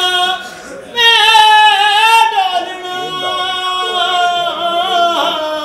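A voice singing a Punjabi song: after a brief break, one long high note is held from about a second in until near the end, its pitch wavering.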